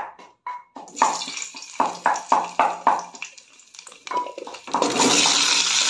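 Hot oil with spices crackling in an aluminium kadai, with short sharp crackles and knocks. Near the end, cut potato pieces are tipped in from an aluminium pot and a loud, steady sizzle starts.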